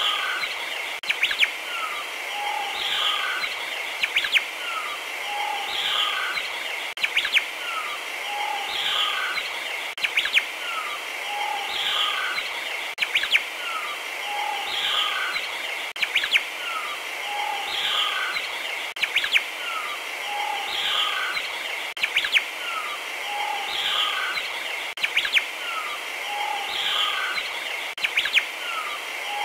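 Recorded birdsong played on a loop: the same few chirps and whistles repeat about every two seconds over a steady high buzzing hiss.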